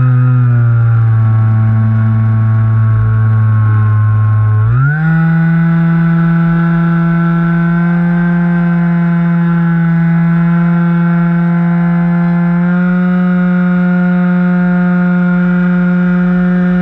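Electric motor and propeller of a Skywalker 1680 RC plane, heard from on board, giving a loud steady whine over wind rumble. The pitch jumps up quickly about five seconds in as the throttle is opened, and steps up a little again about three-quarters of the way through.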